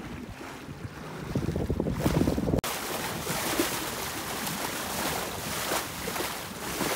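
Wind buffeting the microphone aboard a Marieholm IF folkboat under sail, a gusty low rumble; it cuts off abruptly about two and a half seconds in and gives way to a steady hiss of water rushing and splashing along the hull.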